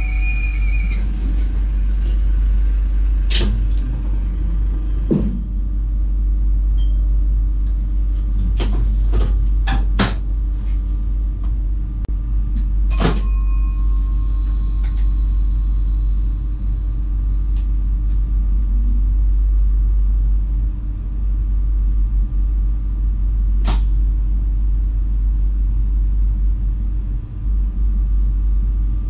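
Cab of a VIRM double-deck electric train standing at a platform: a steady low rumble and hum, with scattered sharp clicks and knocks. A high steady tone cuts off about a second in.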